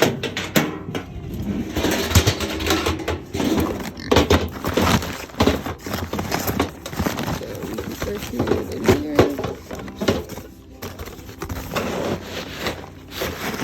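Goat feed being scooped and poured out, with repeated clattering and knocking of the scoop and feed pans.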